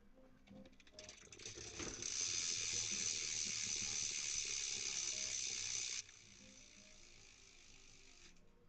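BMX rear hub freewheeling, its pawls clicking so fast they merge into a steady buzz as the wheel spins without pedalling; it builds up, holds, then drops suddenly to a quieter level about six seconds in.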